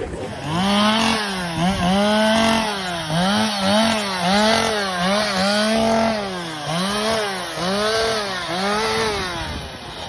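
Two-stroke chainsaw cutting a fallen tree, its engine pitch rising and falling over and over, about one and a half times a second, as the saw is throttled through the wood. It dies down near the end.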